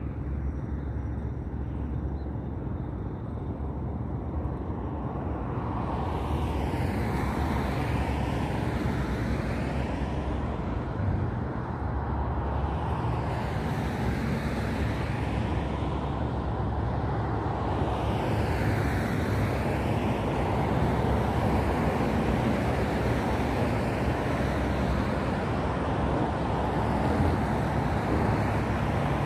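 Road traffic: several cars passing one after another, their tyre noise swelling and fading, over a steady low rumble.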